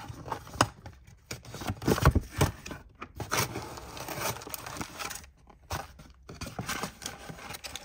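Cardboard box being torn open by hand: irregular tearing, scraping and crinkling as the flaps are pulled apart, loudest about two seconds in.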